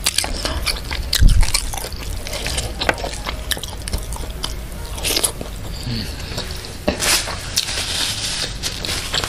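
Close-miked eating of fried duck and crisp fried crumbs by hand: crunching and chewing, a steady run of small crackles with a few louder crunches.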